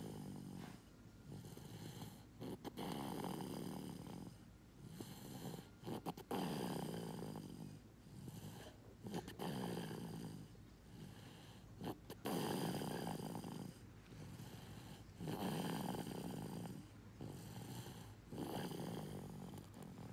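Snoring in a steady rhythm: about six rasping snores, roughly one every three seconds, with quieter breathing in between.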